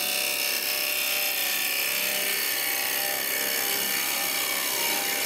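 Carbide cup-cutter turning tool taking a sweeping cut across spinning ash on a wood lathe: a steady scraping hiss from the cut, with a low hum from the lathe beneath.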